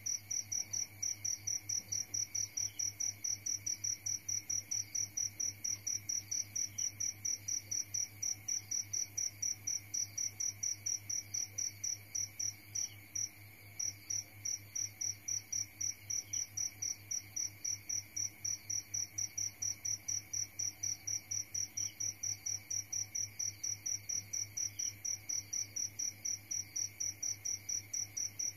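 A cricket chirping steadily, a high-pitched, evenly pulsed chirp several times a second, which breaks off briefly about halfway through. A faint low hum lies underneath.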